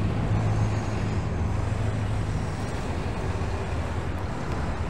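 City street traffic noise, dominated by the steady low hum of a bus engine running close by, easing off slightly partway through.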